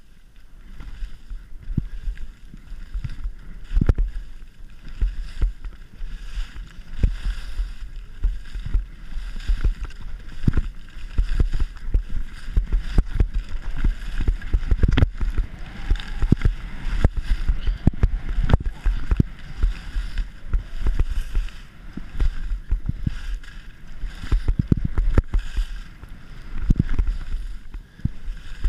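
Wind rushing and buffeting on the camera microphone during a fast ski run, with the skis scraping over packed snow and many short knocks as they run over bumps.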